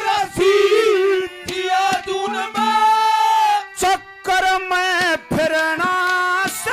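Haryanvi ragni folk music: a melodic line that bends and glides in pitch over drum strokes.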